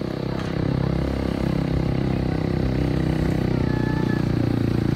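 A motor vehicle's engine running close by, a steady low rumble that grows gradually louder.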